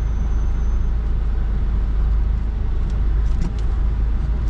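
Car engine and road noise heard from inside the cabin: a steady, deep rumble.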